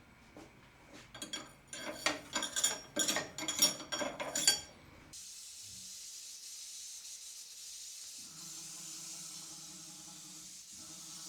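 Metal tool holders clinking and rattling as they are handled and fitted into the CNC lathe's tool-changer pockets, for about five seconds. Then a steady hiss starts abruptly, joined about three seconds later by a steady machine hum.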